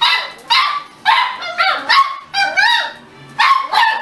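Beagles barking in a quick series of short, yelping calls, about eight in a row, each call rising and falling in pitch.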